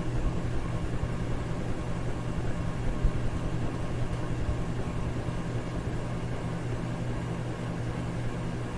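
Electric fan running steadily: an even whoosh of moving air over a low motor hum.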